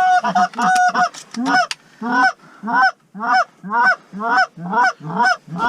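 Canada goose honking: a longer held note, then a quick, even series of short honks, about two or three a second.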